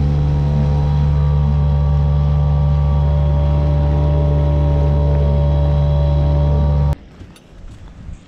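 Small outboard motor on an inflatable dinghy running at a steady speed, stopping suddenly about seven seconds in. A quieter stretch with a few faint clicks follows.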